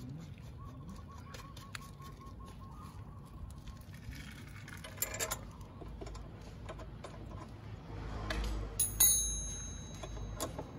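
Handling noise and small metal clicks as a steel side-rack bracket is fitted to a motorcycle's rear bodywork. A cluster of sharper clicks comes about five seconds in, and a louder metal clink that rings briefly about nine seconds in.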